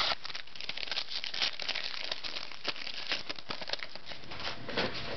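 Trading cards being handled and flipped through by hand: a dense, continuous rustle of small clicks and slides of card stock.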